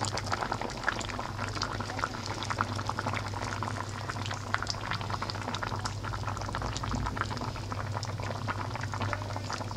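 Broth with chicken pieces boiling in a pot: a steady, dense crackle of bubbling, with a low hum underneath.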